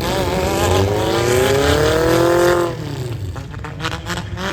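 Demolition derby car engine revving, its pitch climbing steadily for about two and a half seconds before it drops off, over a steady low rumble of engines.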